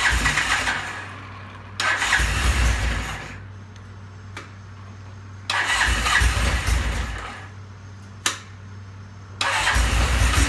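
Vintage British motorcycle engine running cold after a fresh start, blipped with the throttle four times, each rev lasting about a second and a half before it drops back to a rough idle. It doesn't take throttle well while cold. Two sharp pops sound between the revs.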